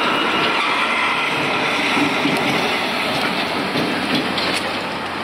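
Steady city street noise: a continuous rushing hum of passing traffic.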